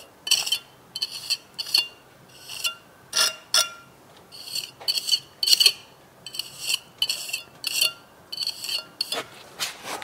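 Tip of a steel pointing trowel scraping over fresh mortar in the vertical joints of brickwork, in short irregular strokes about two a second, as the perps are struck into a bird's beak (double-strike) pointed finish.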